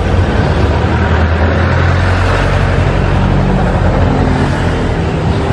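A motor vehicle's engine running close by, a loud low rumble whose pitch shifts slightly a couple of times, over street traffic noise.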